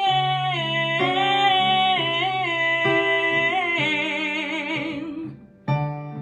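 Worship song sung with instrumental accompaniment: a long held, drawn-out sung note that wavers with vibrato about four seconds in, then fades away, with the accompaniment picking up again near the end.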